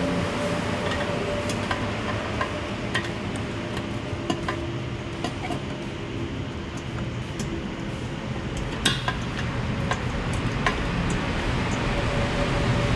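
Scattered light metallic clinks and taps of tools and parts being handled while a fuel tank is fitted to a scooter, over a steady mechanical hum; the sharpest knock comes about nine seconds in.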